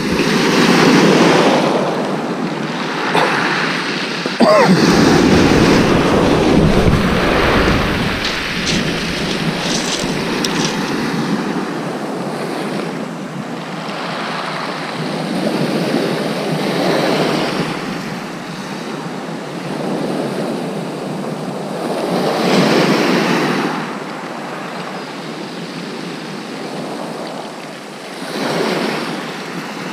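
Small waves breaking on a shingle beach, the wash swelling and fading every few seconds, with a deeper rumble between about five and eleven seconds in.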